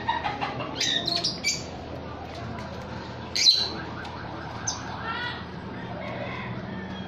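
Small caged parrots, lovebirds with a ring-necked parakeet, giving short shrill squawks and chirps. A quick run of calls comes in the first second and a half, and the loudest single squawk about three and a half seconds in.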